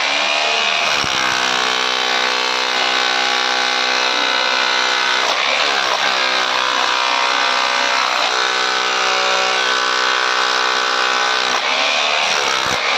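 Buildskill BGBH26RE 26 mm rotary hammer running in hammer (chisel) mode, breaking up a stone boulder. It makes a loud, steady motor-and-hammering note that sags in pitch and picks up again about four times as the bit bites into the stone.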